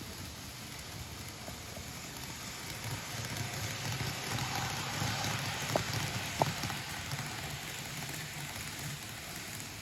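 Old-livery Hokuto model train running past, its running noise swelling and then easing off, with a low motor hum and two short clicks in the middle. The motor has started making an abnormal noise.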